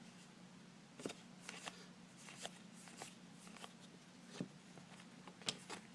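Faint rustle and scattered light clicks of baseball trading cards being handled and flipped through by hand.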